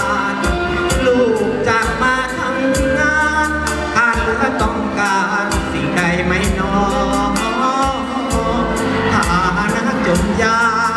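A song played loud: a singer's voice over band backing with a steady drum beat.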